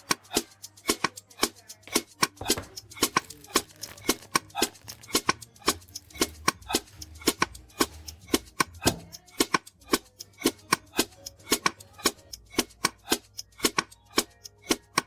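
Knife chopping on a cutting board in quick, uneven strokes, about three a second.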